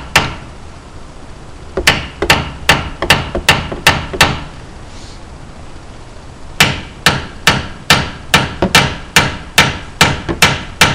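Hammer blows on a screwdriver driven into the rusted seam between a 1997 Ford Ranger's front spindle and its steering knuckle, metal on metal, to break the seized spindle loose. The strikes come in quick runs of about three a second, with a pause of about two seconds in the middle.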